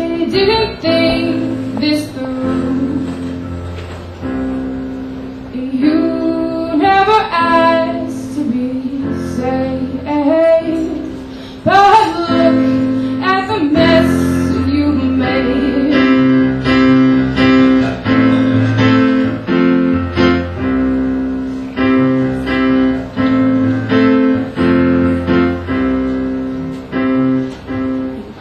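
A woman singing with instrumental accompaniment. In the second half the accompaniment plays repeated, evenly spaced chords under the voice.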